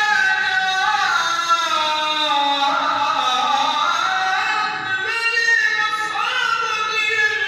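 A man's solo voice chanting an unaccompanied religious recitation in long, ornamented phrases, the pitch sliding and turning within each line. One phrase ends about five seconds in and a new one begins.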